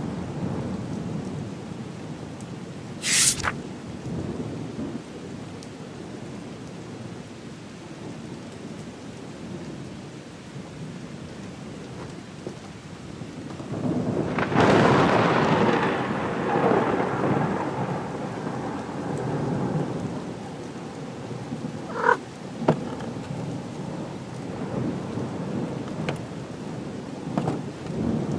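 Steady rain with a long roll of thunder that swells about halfway through and slowly fades. A short, sharp crack comes about three seconds in, and a few brief clicks follow later.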